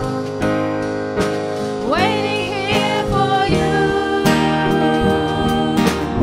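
A worship song: a voice singing over instrumental accompaniment, with the singing coming in about two seconds in.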